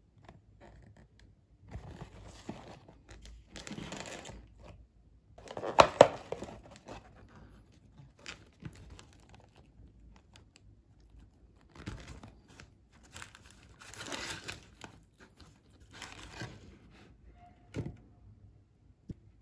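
Cardboard and paper fast-food packaging being handled: a cardboard chicken box opened and wrappers rustled and crumpled in several bursts, the loudest about six seconds in.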